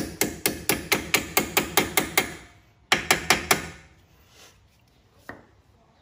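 Stubby hammer tapping the pad-retaining pins into a Brembo fixed brake caliper to seat them: a quick run of sharp taps, about six a second, for a little over two seconds, then four more taps about three seconds in.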